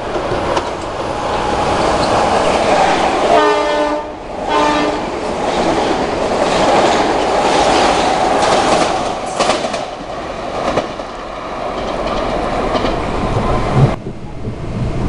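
Metro-North electric commuter train sounding two short horn blasts as it approaches, then passing close at speed with a loud rushing roar and wheels clattering over rail joints.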